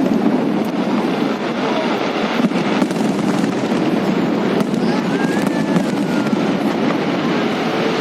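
Fireworks display: a continuous barrage of bursts and crackling reports, with a thin whistle rising and falling about five seconds in.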